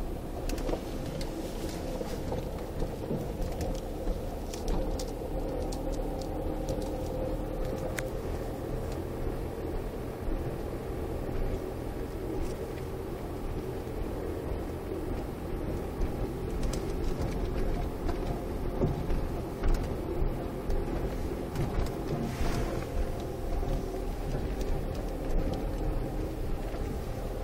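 Car running slowly over a rough concrete-slab road, heard from inside the cabin: a steady engine and tyre rumble with occasional short knocks as the wheels cross joints and bumps.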